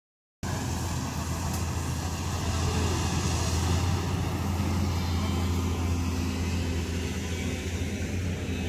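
A Caterpillar hydraulic excavator's diesel engine running steadily with a low, even hum; the sound begins abruptly less than half a second in.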